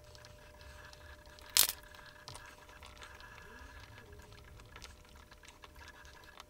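Faint small-parts handling as nylon grub screws are fitted by hand into the holes of a plastic lever part, with a few light ticks and one sharp click about a second and a half in. A faint steady hum of several tones sits underneath.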